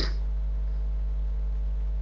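Steady low electrical mains hum with faint hiss from the recording chain, with a brief soft hiss right at the start.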